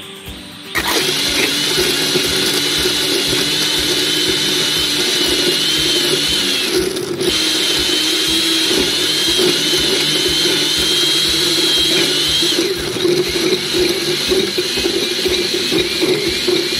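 Countertop blender motor running at high speed, its blades pureeing peeled garlic cloves with a little apple cider vinegar in a glass jar. It starts about a second in, cuts out briefly around the middle, and near the end its steady whine gives way to a rougher, uneven churning.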